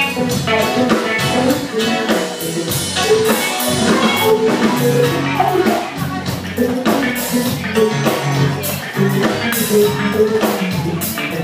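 Music with a drum kit and guitar playing a steady beat.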